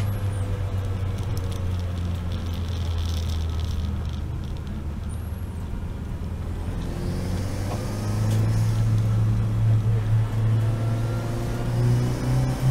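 Seat Leon race car's engine heard onboard, running at steady revs with road noise. From about eight seconds in it grows louder and climbs in pitch as the car accelerates.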